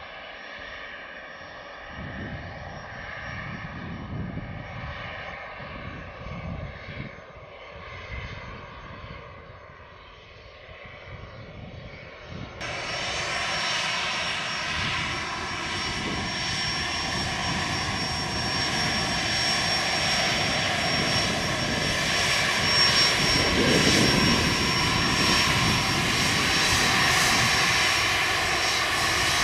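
A Bombardier Challenger 350 business jet taxiing, its two Honeywell HTF7350 turbofans running at low taxi power with a steady high whine. The sound becomes much louder and closer about twelve seconds in.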